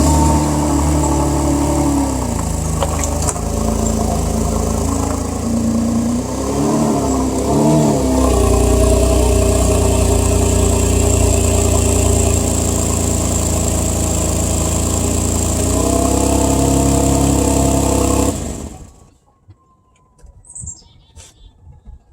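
Chevrolet Impala's 3.6 V6 engine running, with a few small rises and falls in engine speed, then switched off about 18 seconds in.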